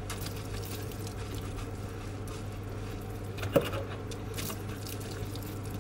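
Metal sink strainer guard being scrubbed with a wet cloth over a stainless steel sink: faint wet rubbing over a steady low hum, with one sharp knock about three and a half seconds in.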